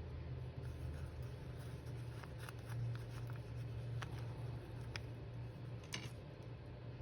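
A dog snoring low and steady, swelling for a moment about three seconds in, with a few light clicks and rustles of paper and craft supplies being handled.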